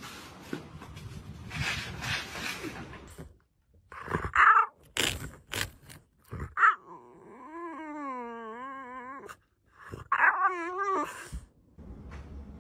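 A dog whining in long, wavering cries: one lasting about two seconds, then a shorter warbling one. A few sharp knocks come before them.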